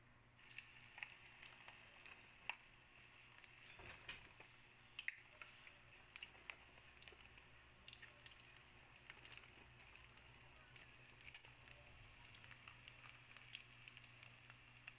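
Strips of food deep-frying in hot oil in an aluminium pot: a sizzling hiss with many small crackles and pops, beginning about half a second in.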